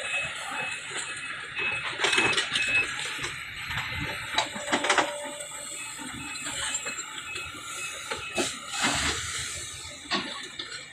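Sumitomo SH350 hydraulic excavator at work, its diesel engine running under load while wood cracks, knocks and crashes as palm trunks and debris are pushed and stacked. A repeated high beep sounds through the first few seconds.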